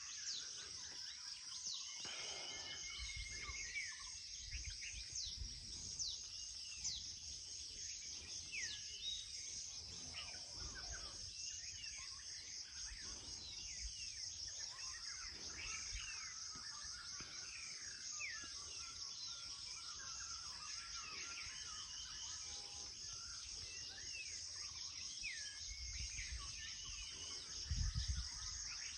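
Many birds chirping in a morning chorus over a steady, high-pitched buzzing drone. Occasional low thumps come through, the loudest near the end.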